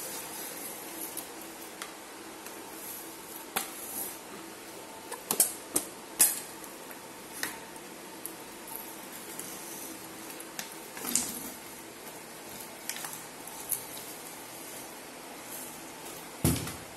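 Scattered clicks and knocks of hard plastic from a baby walker and its toy tray, with a few louder knocks among them.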